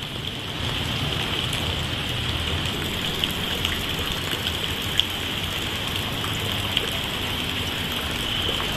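Steady hiss of heavy monsoon rain falling, with a few sharp ticks of drops.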